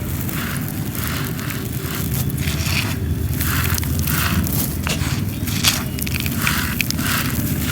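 Dry clay being crumbled: a run of short, gritty crunches, roughly two a second, over a steady low rumble.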